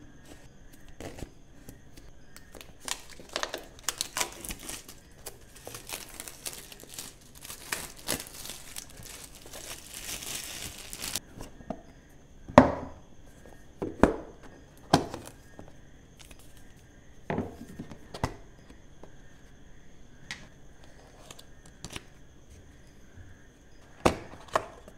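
Packaging on a smartphone box being slit with a blade and torn away, crinkling for several seconds. Then the cardboard box parts are slid apart and set down with several sharp knocks.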